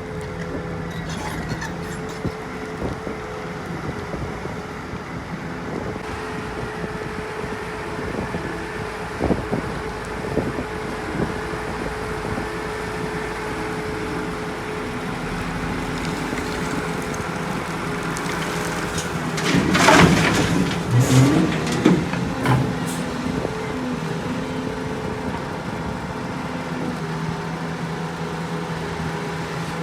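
Heavy earthmoving machinery, an excavator and dump trucks, with diesel engines running steadily. About twenty seconds in there is a louder burst of clattering and knocks lasting a few seconds.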